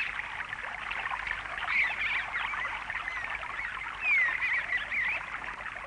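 Birds chirping: short high chirps repeating over a soft background hiss, with louder runs of chirps about two and four seconds in.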